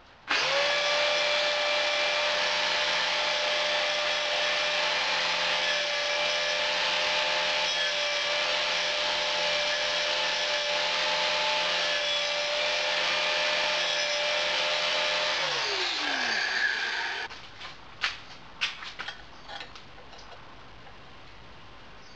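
Angle grinder starting up and grinding on metal for about fifteen seconds, with a steady whine under a harsh hiss. It is then switched off and winds down with a falling whine, followed by a few light clicks and taps.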